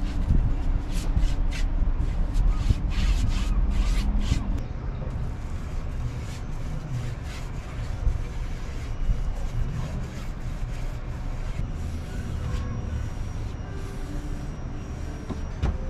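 A paintbrush being stroked back and forth along wooden slats, spreading oil, in short repeated scratchy strokes over a low rumble that is strongest in the first few seconds and then eases off.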